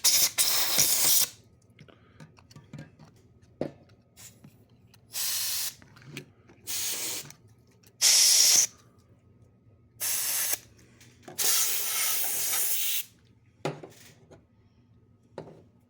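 Canned compressed air (keyboard duster) sprayed in short blasts into a sewing machine: about six separate bursts of hiss, each half a second to a second and a half long, with a few faint clicks between them.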